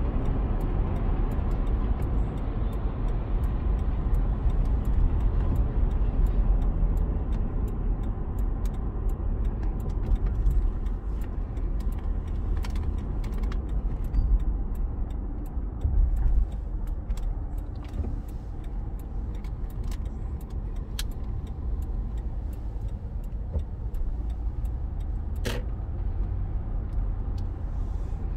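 Road noise inside a moving car's cabin: a steady low rumble of tyres and engine that eases off somewhat in the second half, with scattered light clicks.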